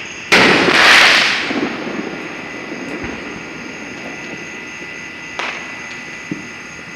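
A nearby firework going off with a sudden loud bang about a third of a second in, its crackling noise fading over about a second and a half. Two fainter, sharp pops follow near the end.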